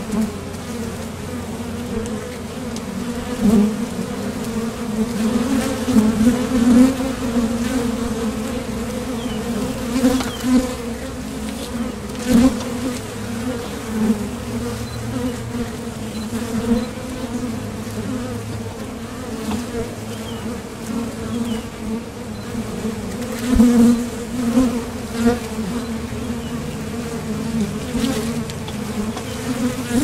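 Honeybees buzzing: a steady, dense hum with a low drone and a second note about an octave above it, swelling louder now and then as bees move close.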